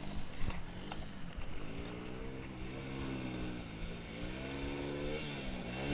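Quad bike engine running, its pitch rising and falling in slow swells as the throttle is opened and eased.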